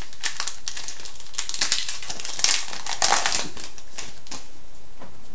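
Foil wrapper of a 2011-12 Panini Contenders hockey card pack crinkling and crackling as it is handled and opened, in a quick run of sharp crinkles with louder bursts around the middle.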